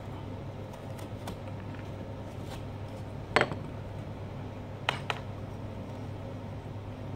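Small knife cutting into a pumpkin's rind, giving a few short sharp clicks; the loudest comes about three and a half seconds in, with two close together about five seconds in. A steady low hum runs underneath.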